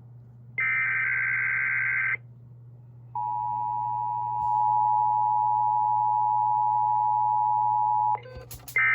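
SAGE EAS encoder relaying an alert: one burst of the SAME digital header warble, then about five seconds of the steady EAS attention tone. It stops with a few clicks, and a short end-of-message data burst begins at the very end.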